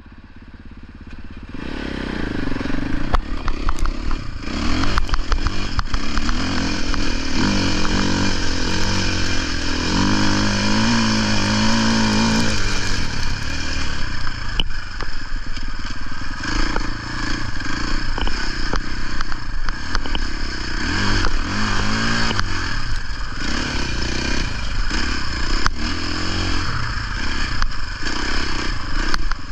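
Motocross bike engine running at modest revs as it rides through soft sand, rising and falling in pitch as the throttle opens and closes. It is quieter for the first second or two, then louder.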